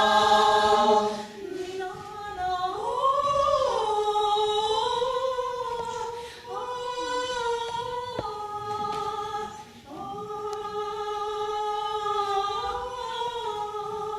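Choir singing a cappella: long held chords with no words, breaking off briefly about six and ten seconds in.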